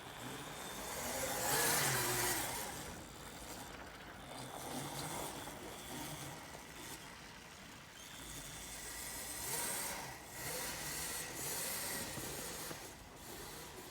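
Electric ATV driving, its motor whine rising and falling with speed over a hiss of tyres in snow. The sound swells twice, loudest about 2 seconds and 10 seconds in.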